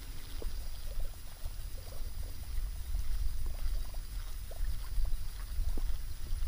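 Wind rumbling on the microphone, with faint scattered ticks from a baitcasting reel being cranked to retrieve a topwater lure.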